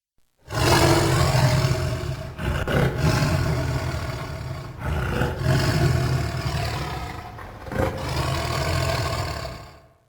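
Uruk-hai creature roar sound effect: one deep, rough roar lasting about nine seconds with a few brief breaks. It starts abruptly and fades out at the end.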